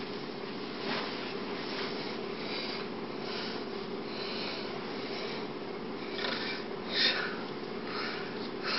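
Steady low electrical hum under soft, irregular breaths and rustles from a person close to the microphone, the loudest about seven seconds in.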